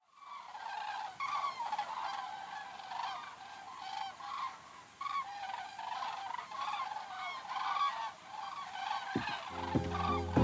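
A flock of geese honking, many short calls overlapping. Music with a steady beat comes in near the end.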